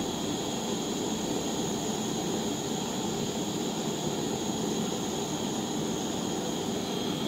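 FunOwlet refillable butane torch burning with its flame turned up: a steady rushing hiss of gas and flame.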